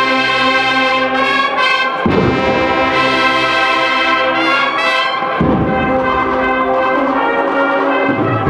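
Agrupación musical, a Spanish Holy Week band of trumpets, trombones and percussion, playing a processional march. Loud sustained brass chords, with a deep drum stroke roughly every three seconds.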